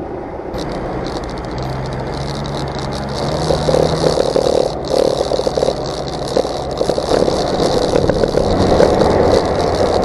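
Utility vehicle driving on a gravel track, heard from on board: the engine note climbs as it picks up speed, over tyres crunching on gravel and the body rattling. It grows louder about three and a half seconds in.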